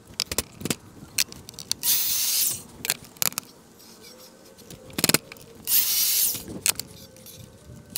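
A power drill/driver run in two short bursts of under a second each, about two and six seconds in, with a longer run starting at the very end, turning the adjustment bolts while the miter saw fence is being squared. Sharp taps and clicks of the board and tools being handled come in between.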